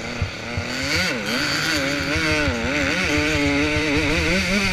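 Dirt bike engine heard close up from the rider's own bike, its pitch dipping and climbing again about a second in, then rising and falling repeatedly as the throttle is worked.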